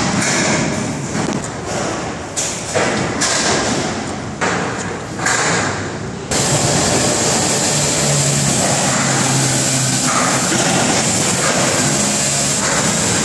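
A few irregular knocks and clatter, then about six seconds in a loud, steady machine noise starts suddenly and keeps running.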